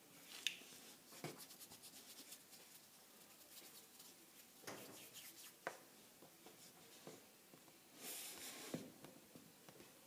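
Faint handling sounds of fingers on a wooden tabletop while working a small piece of polymer clay: scattered light taps and clicks, with a brief scraping rustle about eight seconds in.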